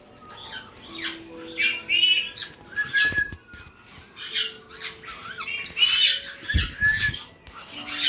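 Caique parrots squawking: a string of short, shrill screeching calls, one after another. A couple of low bumps come late on.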